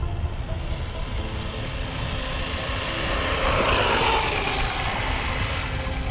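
Brushed electric motor and gearing of an Arrma Senton 4x2 Boost RC short course truck whining as it drives. The whine swells and slides down in pitch about four seconds in, over a steady low rumble of wind on the microphone.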